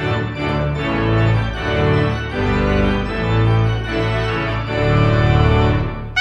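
Instrumental outro music with sustained chords over a low bass line, stopping abruptly just before the end.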